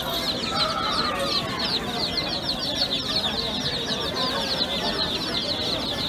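A large crowd of baby chicks peeping constantly: many short, high, falling cheeps overlapping in a continuous chorus.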